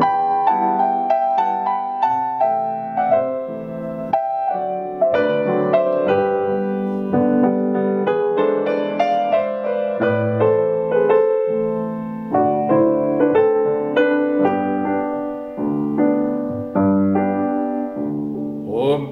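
Grand piano playing a solo interlude in a classical art song, a continuous flow of single notes and chords with the voice silent.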